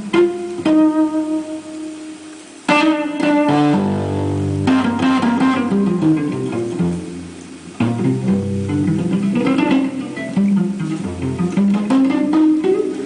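Guitar playing an instrumental passage: picked single notes over a moving bass line, with strongly struck chords near the start and about two-thirds of the way through.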